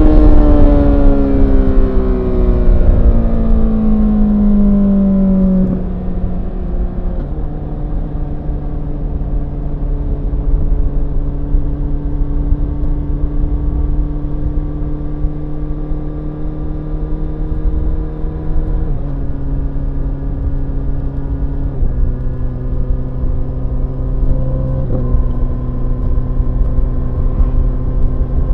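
Honda CBR1000RR SP's inline-four engine: the revs fall away from high over the first few seconds, then it runs at a steady middling pace, the note stepping down in pitch a few times.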